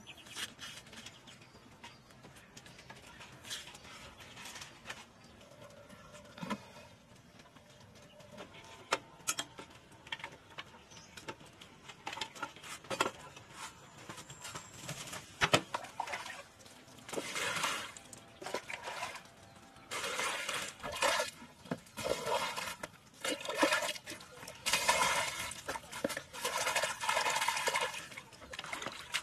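Hands swishing a bunch of leafy herbs in a plastic basin of water, in repeated splashing bursts through the second half. Before that, only faint scattered clicks and rustles of vegetables being handled.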